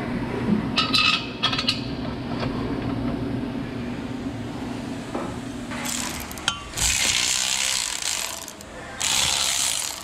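Ratchet wrench working the exhaust bolts: a few sharp clicks about a second in, then three bursts of ratcheting, each a second or two long, in the second half.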